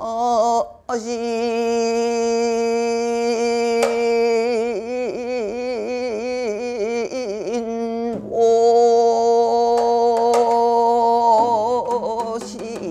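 A woman singing sijochang, Korean classical sung poetry, in long held notes. The pitch wavers widely in a slow vibrato through the middle, and the line breaks briefly for breath about a second in and again about eight seconds in.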